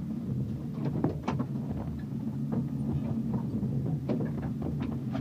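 Jeep engine running while driving over a rough dirt track, heard from inside the cabin, with irregular knocks and rattles as the vehicle bumps along.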